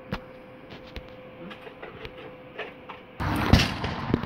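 Faint clicks over a low steady hum. About three seconds in, outdoor noise starts suddenly, followed by one loud thump: the Big Brutus canister shell being fired from its mortar tube.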